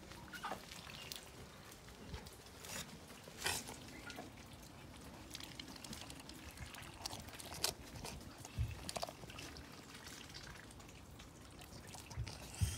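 Ducks dabbling in shallow muddy puddles: bills sifting and slurping through the water, with scattered small splashes and drips.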